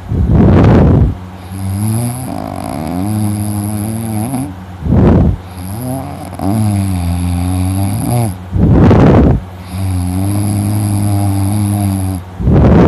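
A man snoring heavily in deep sleep: three long, pitched snores, each followed by a loud, rushing breath blown close to the microphone, in a slow cycle about every four seconds. The rushing breaths are the loudest sounds.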